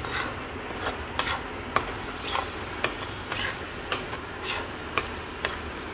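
Flat metal spatula stirring and scraping besan as it roasts in ghee in a metal kadai, with short scrapes about twice a second.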